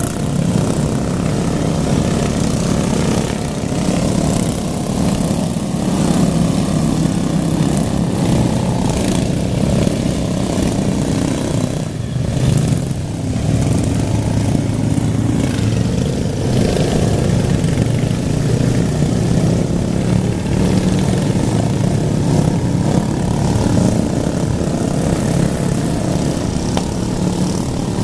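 Small engines of racing lawn mowers running hard without a break, their pitch rising and falling a little as they rev.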